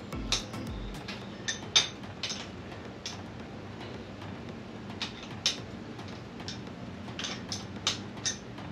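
About a dozen light clicks and taps at irregular intervals, from tools and trike parts being handled during assembly, over a faint steady hum.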